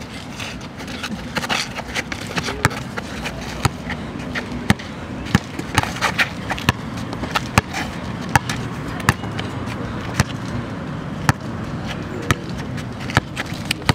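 Basketball dribbled on a brick-paver court, bouncing about once a second.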